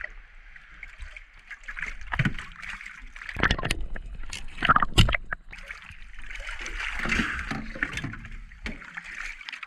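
Sea water sloshing and splashing around a swimmer at a boat's side, with several loud knocks and splashes; the loudest comes about five seconds in.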